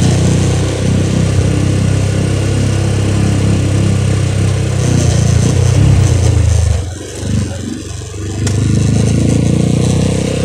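Motorcycle engine running under way, a steady low drone. It eases off about seven seconds in and picks up again a second or so later.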